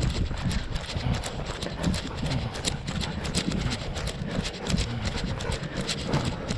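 Running footsteps on a gravel path, close to the microphone: a quick, steady run of crunching footfalls with many small sharp clicks of stones.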